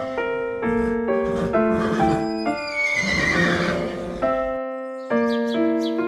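Background music of held keyboard-like notes, with an animal call that falls in pitch about three seconds in.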